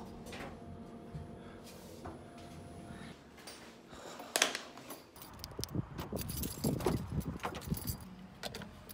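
A set of keys jangling in a run of quick metallic clicks and jingles over the second half, after a faint steady hum and one sharp click a little after four seconds in.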